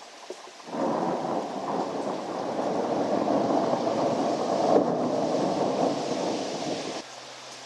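A long rumble of thunder that starts suddenly about a second in and cuts off abruptly near the end, over a steady hiss of rain.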